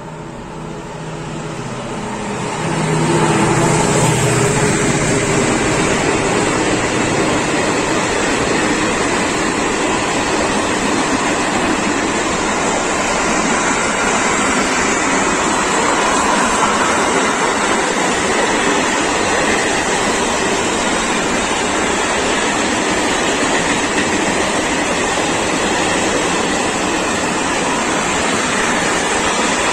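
Class 335 (Vossloh Euro 4000) diesel locomotive passing close by, its engine rising in the first three seconds. It is followed by a long container train's wagons rolling steadily past on the rails.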